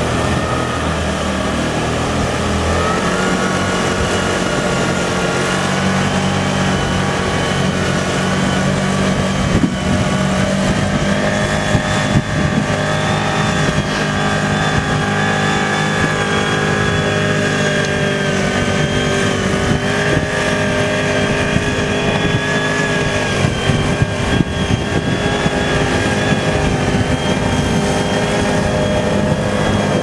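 Engine of a small amphibious off-road vehicle on big low-pressure tyres running hard as it ploughs through icy river water, with water splashing around it. The engine note holds steady and shifts in pitch a few times, and there are a few short knocks.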